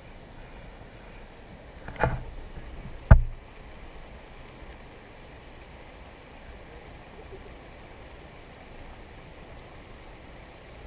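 Shallow rocky creek running, a steady rush of water, broken by two sharp thumps about a second apart, around two and three seconds in.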